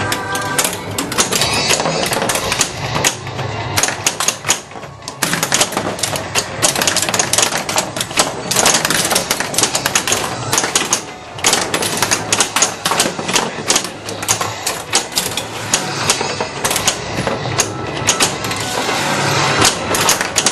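1994 Bally The Shadow pinball machine in play: rapid clacking of flippers, bumpers and solenoids as the ball is struck around the playfield, over the machine's own music and sound effects.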